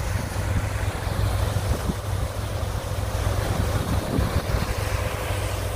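Water gushing through the open paddles of a wooden canal lock gate, a steady rushing, with wind buffeting the microphone.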